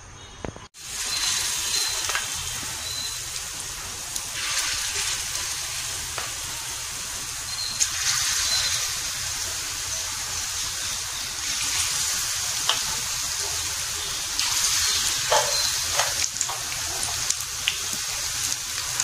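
Spoonfuls of nendran banana and coconut batter frying in hot oil in a nonstick pan: a steady sizzle that starts abruptly about a second in, with a few light clicks.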